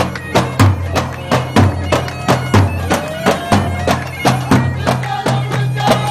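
Traditional music: a steady drumbeat of about three hits a second under a held low drone and a reedy, bagpipe-like wind melody.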